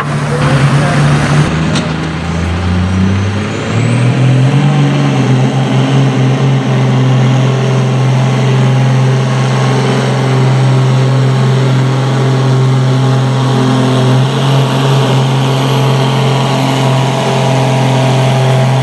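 Diesel pickup dragging a pulling sled at full throttle. The engine note shifts and climbs over the first few seconds, with a high rising whistle, then holds a steady, loud drone under load. For most of it this is a second-generation Dodge Ram's Cummins turbo-diesel.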